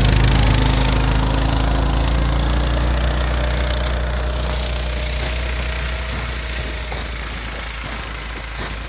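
Snowmobile engine running and pulling away: its pitch rises as it sets off, then its note holds steady while it slowly fades.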